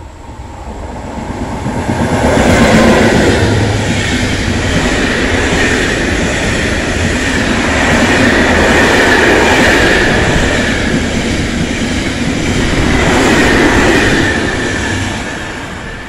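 Freight train of intermodal wagons passing at speed: it builds from a distant approach to a loud rumble of wheels on rails, with a steady high-pitched ring over it, then falls away as the tail passes near the end.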